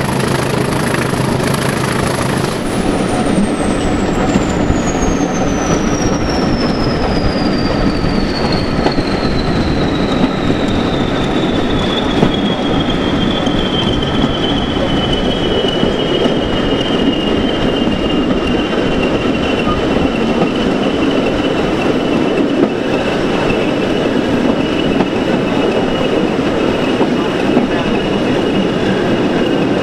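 Class 20 diesel locomotive D8098's English Electric turbocharged V8 coming off power about two seconds in, its turbocharger whistle then winding down, falling slowly in pitch for about thirteen seconds before holding at a lower note. Underneath is the steady rumble and clatter of the train's wheels on the rails as it coasts.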